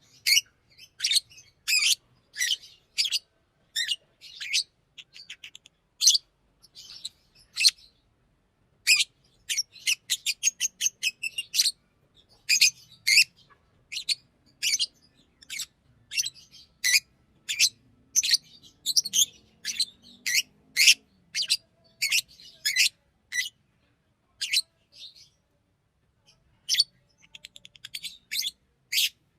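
Green Fischer's lovebird chirping: a long run of short, sharp, high chirps, a few a second, broken now and then by quick rattling trills and brief pauses.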